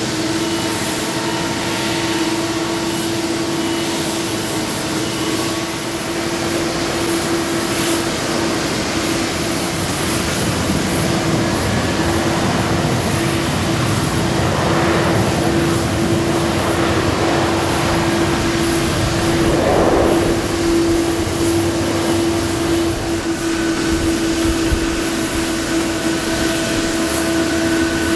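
Jet airliner engine noise at an airport: a steady roar with a constant droning hum underneath, swelling a little around the middle.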